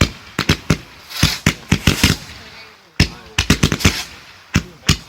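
Fireworks going off: many sharp bangs in quick, irregular clusters, with crackling between them. The loudest single bang comes about three seconds in, followed by a fast run of reports.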